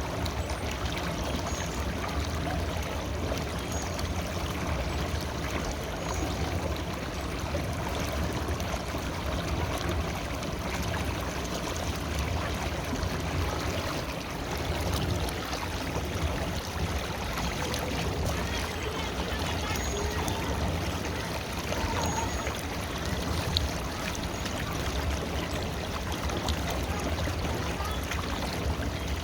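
River water flowing: a steady rushing and burbling of a stream, heaviest in the low end.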